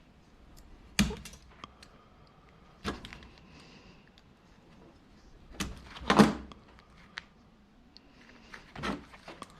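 Scattered knocks and clunks of copper wire and a wire stripper being handled, about five in all, the loudest about six seconds in.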